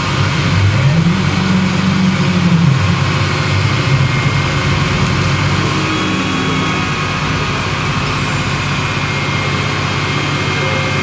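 An engine revving down and up in the first few seconds, then running steadily.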